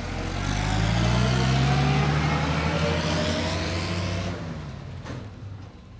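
A motor vehicle's engine accelerating as it drives past, its pitch rising steadily and its loudness building then falling. The engine note drops away sharply a little over four seconds in.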